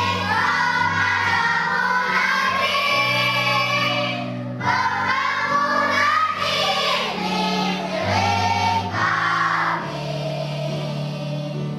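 Children singing together in a group over an instrumental accompaniment with held bass notes, the singing pausing briefly twice between phrases.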